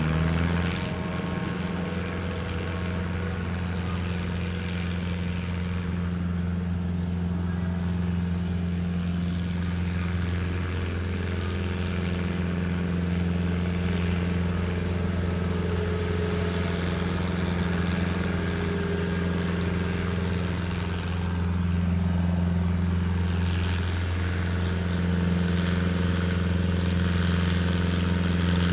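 A small diesel tractor's engine running hard at steady, nearly constant revs under heavy load as it drags a weight-transfer pulling sled. The level rises slightly near the end.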